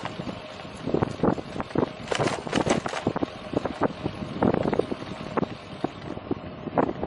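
Wind buffeting the microphone of a bicycle-mounted camera while riding, in uneven gusts over a low rumble.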